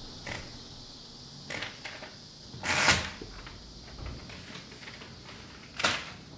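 A sheet of paper being handled and rustled: a few brief swishes, the longest and loudest about halfway through and another near the end.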